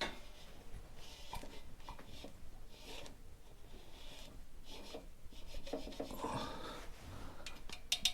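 A metal feeler gauge blade rubbing and scraping as it is slid through the valve clearance between rocker and valve stem, checking the cold tappet gap, with a quick run of light ticks near the end.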